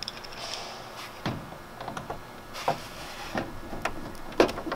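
Scattered light clicks and knocks of a hand-held Phillips screwdriver and screws being started into the plastic flange of a MAXXFAN roof vent, with handling of the fan housing.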